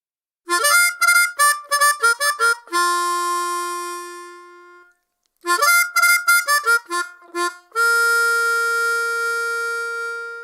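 Harmonica playing two short riffs, each a quick run of notes ending on a long held note. A brief pause falls about five seconds in, and the second held note is higher than the first.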